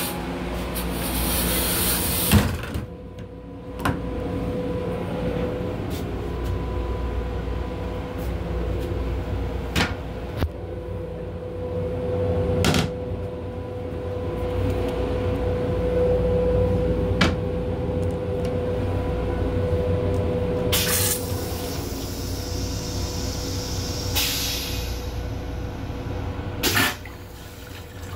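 Steady running noise of a Metro-North M7 electric railcar heard from inside its small restroom: a low rumble with a steady hum. It is marked by several sharp clicks and knocks and short bursts of hiss, two of them about three-quarters of the way in.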